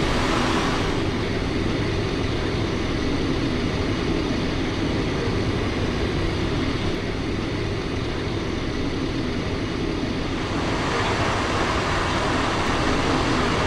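Steady interior noise of a Cessna Citation XLS climbing after takeoff: its twin turbofans and the rush of air over the airframe. About ten seconds in, the noise turns brighter and more hissing as it shifts to the cabin.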